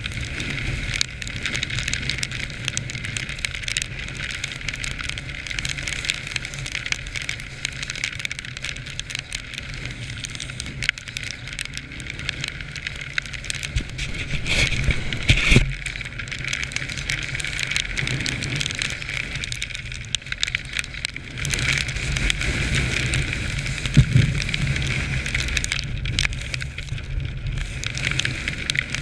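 Quad bike (ATV) engine running while riding over snowy, rough ground, with steady noise and many small clicks over it on the onboard camera's microphone. Two louder knocks come about halfway through and again near the end.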